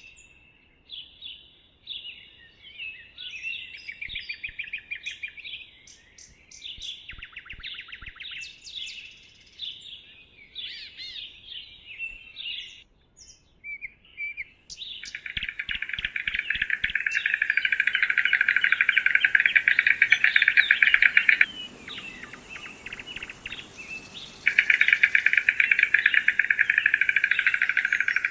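Bird calls: a string of short chirps and trills. About halfway through, loud, dense rapid trilling begins, broken once by a pause of a couple of seconds, with a steady high-pitched hiss like insects behind it.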